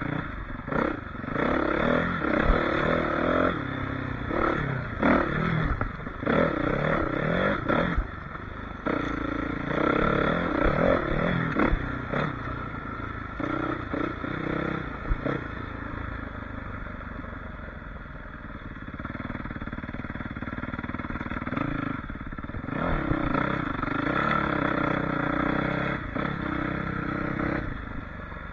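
Suzuki RM-Z450 four-stroke single-cylinder dirt bike engine being ridden, revving up and dropping back over and over, with clatter from the bike. It eases off to a lower, steadier note for several seconds past the middle before revving up again.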